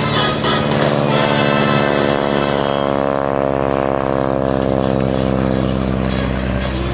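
Modified Stearman biplane's radial engine and propeller flying past, the drone sliding down in pitch as it goes by. Music plays faintly underneath.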